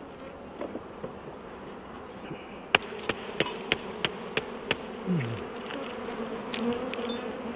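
Honeybees buzzing around an open hive, a steady hum that swells toward the end. From a little under three seconds in comes a run of sharp clicks, about three a second.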